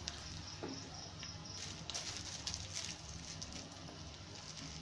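Garlic and asafoetida frying in soybean and coconut oil in an iron kadai, the foaming oil sizzling with a fine crackle and quick pops that grow busier about two seconds in.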